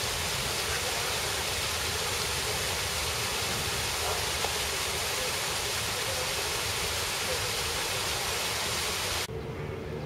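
Small landscaped waterfall spilling down stacked stone steps into a pond: a steady rushing of falling water that cuts off abruptly about nine seconds in.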